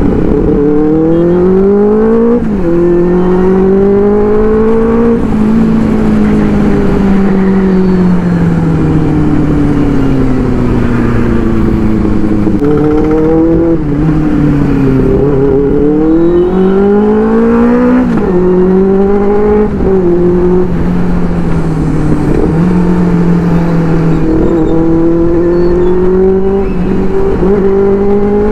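Inline-four superbike engine pulling up through the gears and dropping back with downshifts. The pitch climbs and falls several times, with sharp drops at each shift, a few of them near the start and around the middle.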